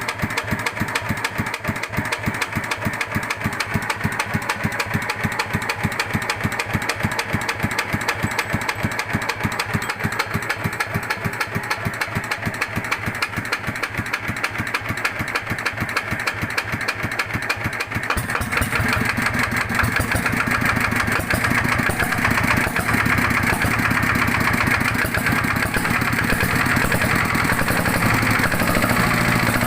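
Yanmar TF105 single-cylinder diesel engine idling very slowly, each firing stroke heard as a separate pulse, with the 'tok tok tok' knock that the owner finds strange and is unsure is normal. About two-thirds of the way through it speeds up and runs faster, steadier and a little louder.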